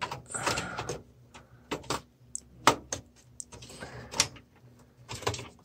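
Clicks, sharp knocks and scraping as a GeForce GTX 1650 graphics card is pushed and wiggled against a PC's expansion slot and case, not yet seating.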